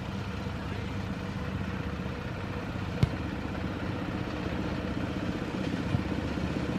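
Small engine of a 7¼-inch gauge miniature locomotive running steadily as it approaches, growing a little louder toward the end. A single sharp click about three seconds in.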